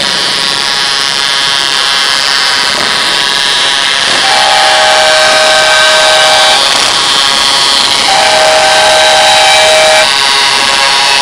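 Truck air horns blowing: a steady chord of held horn tones throughout, with two louder two-note blasts of about two seconds each, starting about four and eight seconds in.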